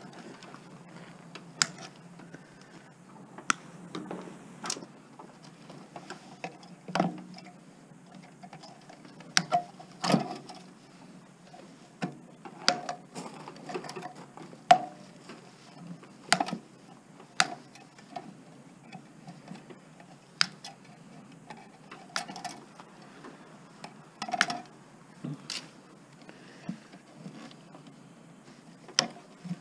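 Irregular light clicks and taps of hand tools and small metal parts while a garage door opener motor is being dismantled, about one every second or two.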